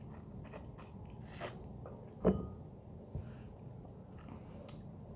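Someone biting and chewing a boiled lemon: small wet clicks and smacks, with one louder knock a little over two seconds in.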